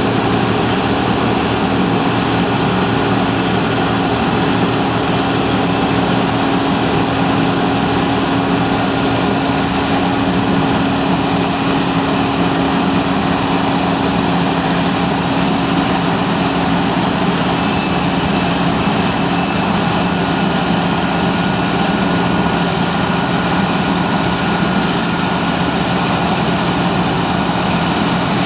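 John Deere 9580 WTS combine harvester running steadily at work, its engine a constant drone without breaks.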